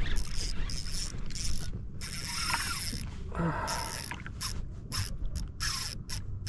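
Fishing reel ratcheting in irregular bursts while a hooked fish is played on a jigging rod, with one longer run about two seconds in.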